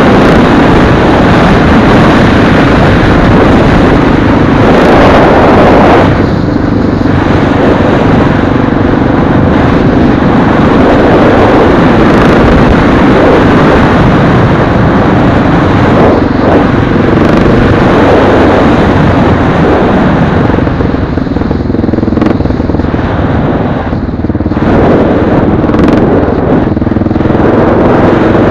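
Motorcycle engine running at road speed, with wind rushing over the microphone. The engine's level dips briefly twice, about a fifth of the way in and again near the end.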